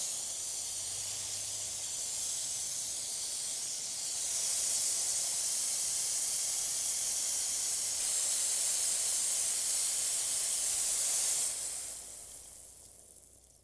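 Water spraying from a garden hose, a steady high hiss. It gets louder about four seconds in, then cuts off near the end and trails away.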